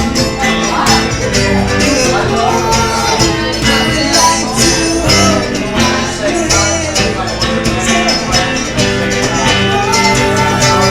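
Live acoustic country-bluegrass jam: a band playing steadily, with guitar strumming and melody lines.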